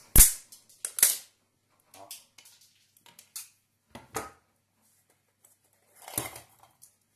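Pliers breaking away a water meter's blue plastic housing: sharp plastic cracks and snaps, the loudest just after the start and another about a second in, then smaller clicks, and a short crackling grind at about six seconds as the plastic register housing is twisted by hand.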